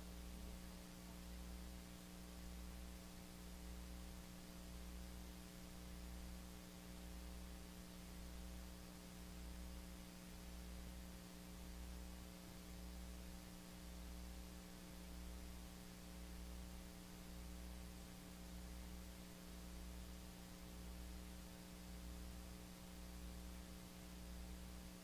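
Steady electrical hum with hiss, with a low throb underneath that swells and fades about once a second.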